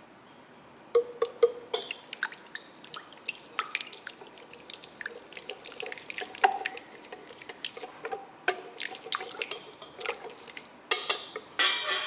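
A wire whisk beating egg, cottage cheese and melted butter in a bowl. Rapid, irregular clicking of the wires against the bowl and wet slapping of the liquid start about a second in, with a louder rasping burst near the end.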